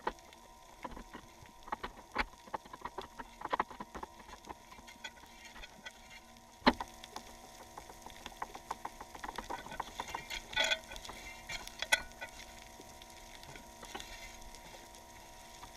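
Boat anchor and its chain bouncing and dragging along a sandy seabed, heard underwater: irregular sharp clicks and knocks. The loudest knock comes about a third of the way in, and a burst of knocks follows about two-thirds through, over a faint steady hum.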